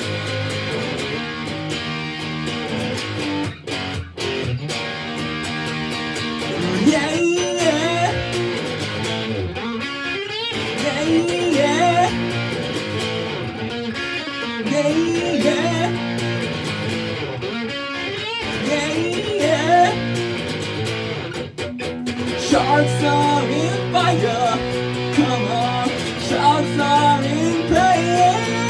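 A man sings while strumming a Telecaster-style electric guitar through an amplifier, a solo rock song with the guitar chords and voice together throughout.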